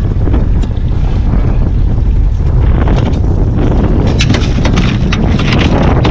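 Wind buffeting the microphone on a small open boat at sea, a loud steady rumble. From about four seconds in, a quick run of short taps and knocks sits on top of it.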